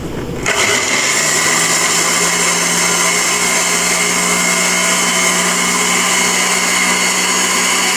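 Electric blender motor grinding chopped white bread into breadcrumbs, getting louder about half a second in and then running steadily at high speed.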